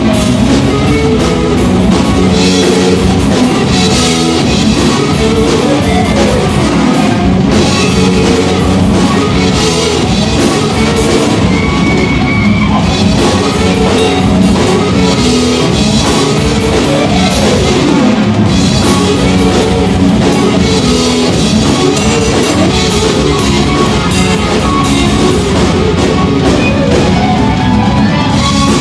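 Live instrumental heavy metal played by a band of electric guitars, bass guitar and drum kit, loud and without a break, in a neoclassical metal style.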